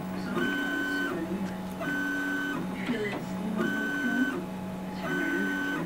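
Stepper motors of a custom-built MendelMax RepRap 3D printer whining as the print head traces the walls of a small thin-walled PLA box: four short runs of a steady pitched whine, about one and a half seconds apart, over a steady low hum.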